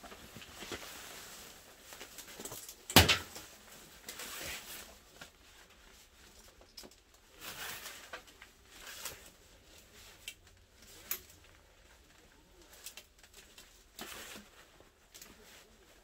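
Handling noise from someone crouched working on water hoses: clothing rustling with scattered clicks and knocks, and one sharp knock about three seconds in.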